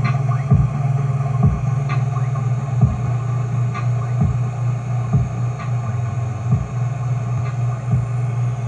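Bass-heavy hip-hop instrumental beat with no vocals: a steady deep bass tone under kick-drum thumps, with a sharper snare-like hit about every two seconds.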